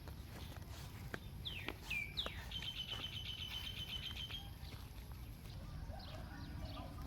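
A bird calling: a few quick down-slurred whistles, then a rapid even trill of about ten notes a second on one high pitch lasting about two seconds, with fainter whistles near the end. A steady low rumble lies underneath.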